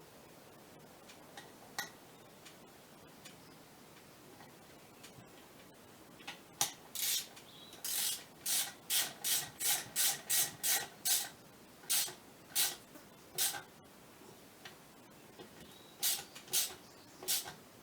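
A screw on a Scania electronic clutch actuator being tightened with a hand tool: a run of short rasping strokes, about two a second, then a pause and a few more strokes near the end as it is brought tight.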